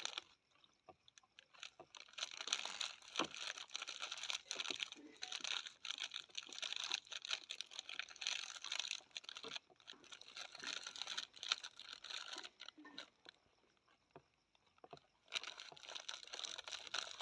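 A spoon stirring and scraping in a bowl of cold milk as custard powder is dissolved, with the plastic custard-powder packet crinkling in the other hand: a dense run of small clicks and rustles that pauses for a second or two near the end.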